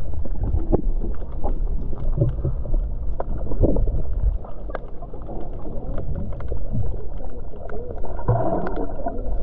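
Wind buffeting the microphone, a steady low rumble, with scattered small knocks and faint indistinct voices about eight seconds in.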